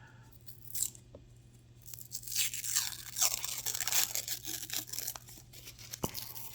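Wrapping of a roll of silver half dollars being torn open, with a faint click about a second in, then a dense crinkling and tearing from about two seconds in.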